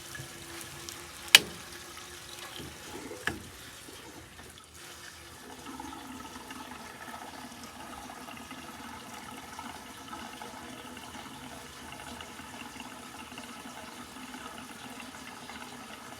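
A sharp knock about a second in and a smaller one about two seconds later, then gasoline pouring steadily from a 5-gallon gas can into a new 19.5-gallon gas tank, the first fuel put into it.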